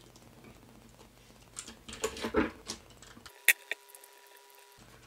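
Light clicks and taps as a plastic push-button control station and its wires are handled and a small screwdriver works its terminal screws. The clicks are scattered, starting about a second and a half in, and the sharpest comes about three and a half seconds in.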